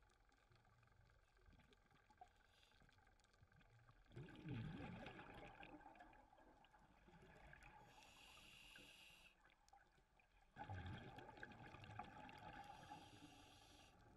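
Scuba diver breathing through a regulator, heard underwater through the camera housing: exhaled bubbles burst out about 4 seconds in and again near 11 seconds, with the hiss of inhaling through the demand valve in between and again near the end.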